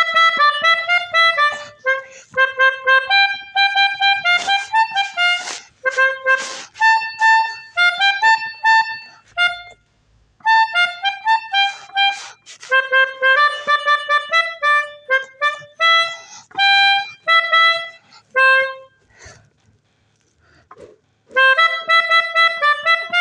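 Melodica (pianika) playing a melody in short, separate notes, with a brief pause about ten seconds in and a longer one near the end.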